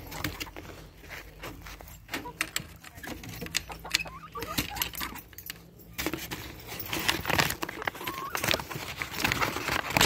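Brown paper bag crinkling and rustling as it is handled and shaken to tip cicadas into a chicken coop, with a dense run of small crackles that grows louder about six seconds in.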